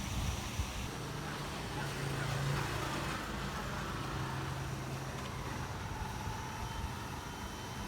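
Street traffic: a car engine running steadily, a little louder for a couple of seconds about a second in.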